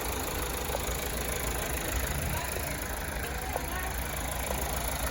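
2015 Mazda CX-5 engine idling steadily, with the air conditioning switched on.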